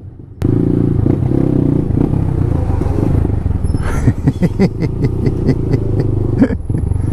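Honda Grom's single-cylinder 125 cc engine running as the bike rides slowly through traffic, heard close on a bike-mounted microphone. It cuts in loudly about half a second in, and a quick run of sharp clicks comes about halfway through.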